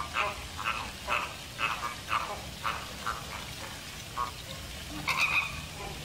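A flock of American flamingos calling: short calls follow one another about twice a second for the first three seconds, then thin out, with a louder call about five seconds in.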